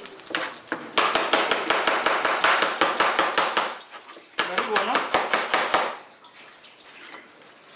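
Kitchen knife slicing a red onion on a plastic cutting board, in quick repeated strokes. There are two runs of slicing: a longer one starting about a second in, then a short pause and a shorter run that stops about two seconds before the end.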